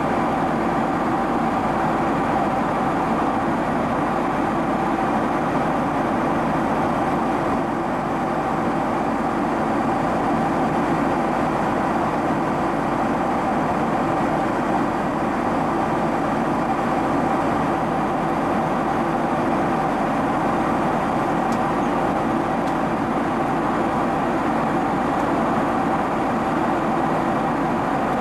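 Steady cabin noise inside a Boeing 767-300 airliner in flight: jet engine and airflow drone with a few steady hums over it, unchanging throughout.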